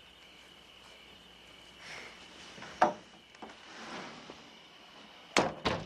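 Night-time crickets keep up a faint steady trill while a few sharp knocks sound, one about three seconds in and a louder pair near the end, with soft rustling in between.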